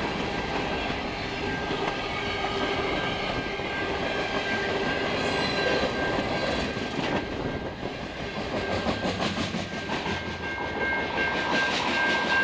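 Freight train of covered hopper cars and flatcars rolling past at a road crossing, the end of the train going by near the end. A steady high tone runs underneath, typical of the crossing's warning bell, and stands out more once the cars have passed.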